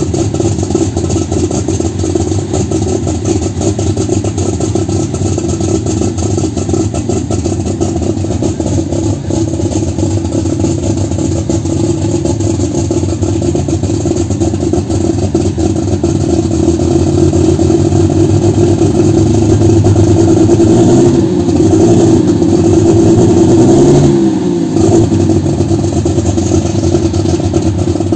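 Engine of a John Deere pulling tractor running loudly while standing still, then revved up from about sixteen seconds in, held high with the pitch swinging, and dropping back sharply around twenty-four seconds before settling again.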